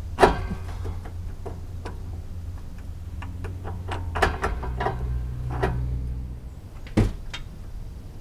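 Irregular metal clinks and knocks of a hand wrench being worked on a bolt above the lower control arm. There is a sharp clank just after the start and another about seven seconds in, over a steady low hum.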